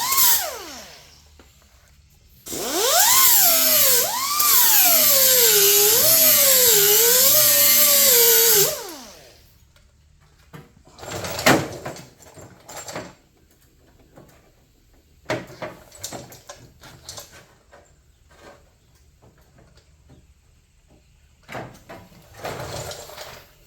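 A handheld power grinder taking metal off the edge of a steel patch panel. For about six seconds its whine dips and climbs in pitch as it loads and unloads against the steel, then it cuts off. Scattered knocks and clicks follow as the panel is handled.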